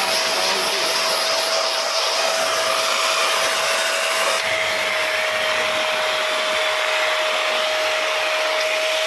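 Morgan canister vacuum cleaner running steadily: a constant motor whine over a loud rush of air. The airy hiss turns slightly duller about four and a half seconds in.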